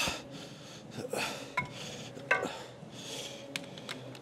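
Metal weight plates clinking and clanking as a 10 kg and a 5 kg plate are loaded onto a plate pin on a machine's weight stack: a few sharp clicks and two ringing clanks, the louder one a little past two seconds in.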